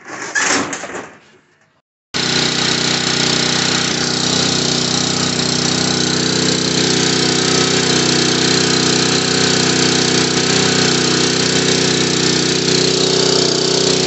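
A brief burst of noise, then about two seconds in the Honda GX270 single-cylinder four-stroke engine of a portable generator is heard running steadily at an even speed, with its rebuilt carburetor.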